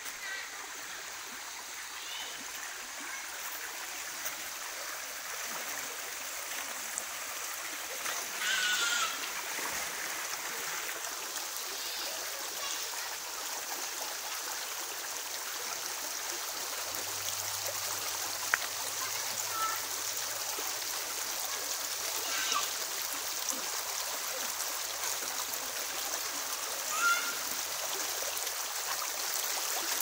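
Shallow jungle stream running over stones: a steady rushing hiss of water. A few short high calls sound over it, the loudest about nine seconds in.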